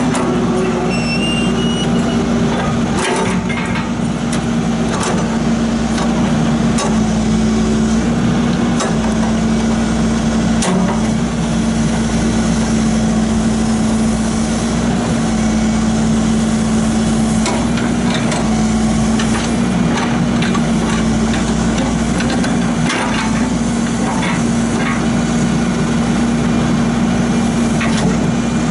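John Deere 310J backhoe's diesel engine running steadily with an even hum, with a few scattered light clicks and knocks.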